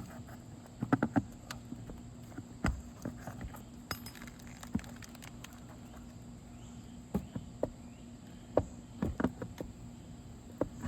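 Metal roof snake (shingle nail-removal bar) clicking, tapping and scraping under an asphalt shingle while feeling for a remaining nail, in irregular clusters of sharp clicks over a steady faint hum.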